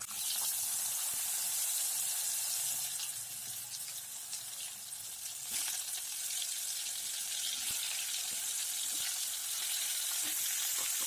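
Cut potato pieces frying in hot oil in a pan, a steady sizzle.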